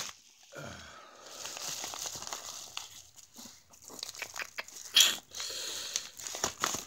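Bubble wrap and a yellow padded paper mailer being handled and pulled apart by hand: irregular crinkling and crackling, with one louder rustle about five seconds in.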